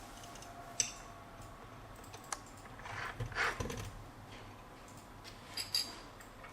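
Small plastic clicks and handling noises from a mini sewing machine being threaded: a sharp click about a second in, a longer rustling scrape a little past the middle, and a couple more clicks near the end.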